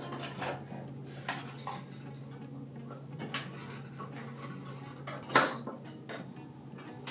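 Light metallic clinks and taps of stainless steel cable hardware being handled and adjusted while the cables are tensioned. There are several scattered strikes, the sharpest about five seconds in, over a steady low hum.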